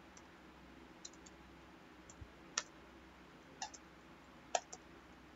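Faint, irregular clicks of a computer mouse and keyboard keys, about seven in all, as a command and value are entered and objects are picked on screen.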